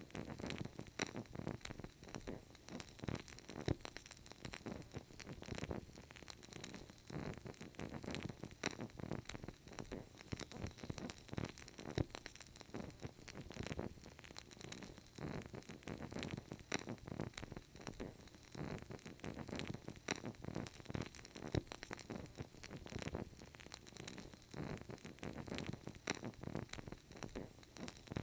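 Burning candle crackling quietly: a steady run of small irregular clicks and pops over a faint hiss.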